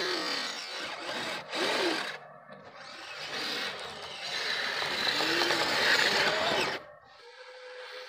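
Twin brushed Traxxas Titan 380 electric motors of a Kyosho Blizzard RC snowcat running under throttle, a whine rising and falling over a loud rushing noise. The sound cuts off suddenly about two seconds in and again near seven seconds, leaving a faint steady hum.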